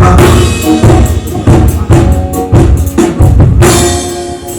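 Band music with the drum kit to the fore: bass drum and snare hits every half second or so under sustained chords. A sung word opens it, and the music thins out near the end.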